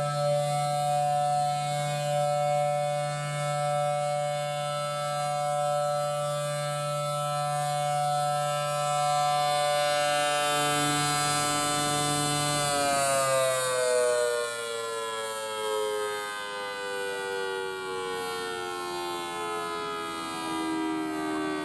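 Federal Signal Thunderbolt 1000T siren sounding a steady alert, a loud two-tone chord held at one pitch. About thirteen seconds in, the low hum beneath it stops and the chord starts winding down, falling steadily in pitch.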